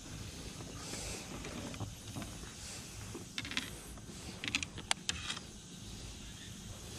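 Scattered small clicks and rattles of fishing gear being handled on a plastic kayak, in short bunches about three and a half seconds and five seconds in.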